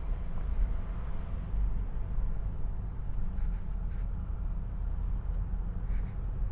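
Car being driven along a lane: a steady low rumble of engine and tyre noise.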